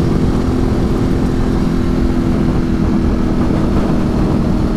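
Ducati 848 Streetfighter's L-twin engine running at a steady cruise, with wind rushing over the microphone.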